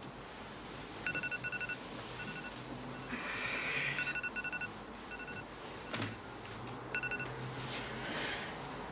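A telephone's electronic ringing: a rapid two-pitch trill that comes in short bursts, again and again. Bedding rustles in between as the sleeper stirs and reaches out from under the duvet.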